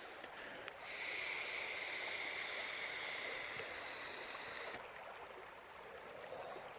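Shallow river water running over stones, a steady rushing hiss that grows louder about a second in and drops away sharply near the end.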